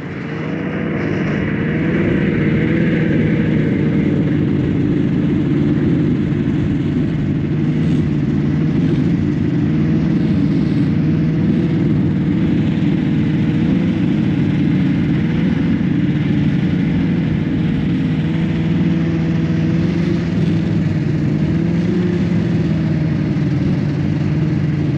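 Snowmobile engine running at a steady cruise, its drone wavering slightly in pitch, over a steady rushing noise of the ride. It fades in over the first second.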